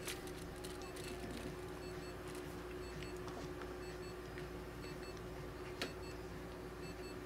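Steady electrical hum of a machine, with faint high-pitched pulses repeating under it and a single sharp click near the end.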